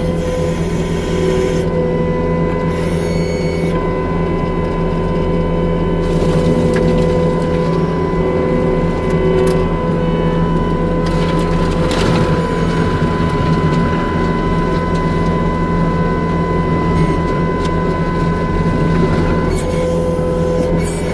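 New Holland C327 skid steer running steadily, with a steady high whine over the engine note. There is one sharp knock about twelve seconds in.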